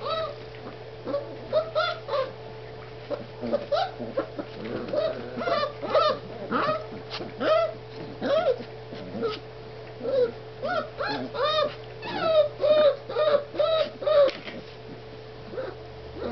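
Four-week-old basset hound puppies calling while they play, with many short, whiny, pitched calls in quick runs, over a steady low hum.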